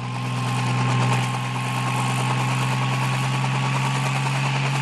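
Quadcopter drone's motors and propellers buzzing steadily: a low, even hum with a hiss over it.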